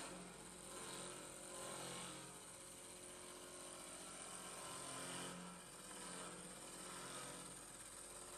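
Faint, steady running of a 5-axis CNC wood-machining centre: a mechanical hum and whine with many steady tones over a noisy haze, swelling and easing slightly every second or so.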